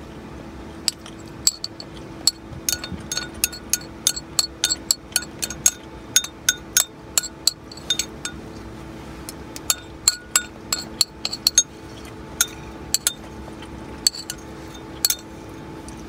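A metal spoon clinking and scraping against a clear plastic food container, many quick sharp taps coming in runs, over a steady low hum.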